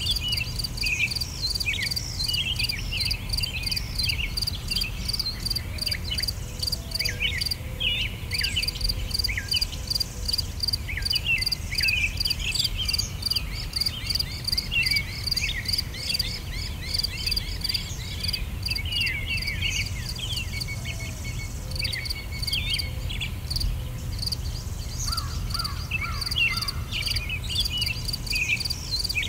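Outdoor nature ambience: many short bird chirps over a steady, fast-pulsing insect trill, with a low rumble underneath.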